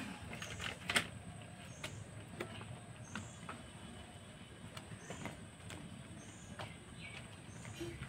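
Faint, scattered clicks and knocks of utensils against a clay cooking pot, as fried pithas are laid one by one into the milk. The sharpest knock comes about a second in, and lighter ones follow every second or so.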